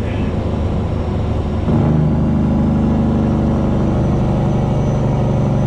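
Cummins ISX diesel engine of a heavily loaded cattle truck pulling under load. About one and a half seconds in the note changes, then holds louder and steady.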